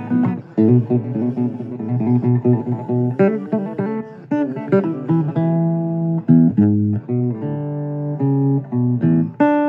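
Guitar playing a blues instrumental: single plucked notes and short runs, each note left to ring.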